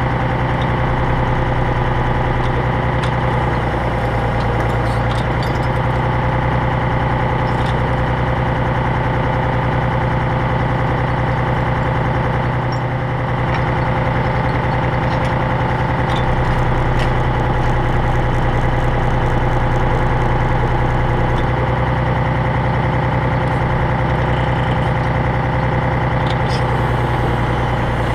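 Unimog's diesel engine running steadily at a constant speed, driving its hydraulic crane as logs are lifted on a chain. A few light knocks and clinks are scattered through.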